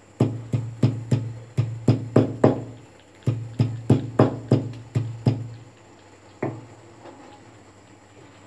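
Ginger being pounded for morning tea: about sixteen heavy knocking strikes, roughly three a second, in two runs with a short pause between them, then a single last strike.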